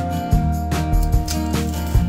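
Background music with a steady beat and sustained low notes.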